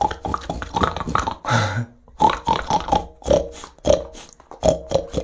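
A man imitating a pig with his voice: a string of short oinks.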